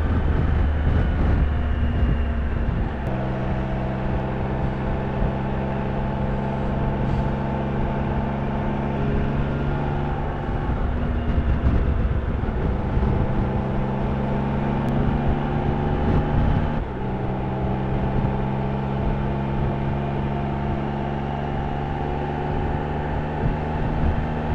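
Triumph Trophy 1200SE's three-cylinder engine running at a steady cruising pace under way. The engine note shifts twice, about ten and seventeen seconds in.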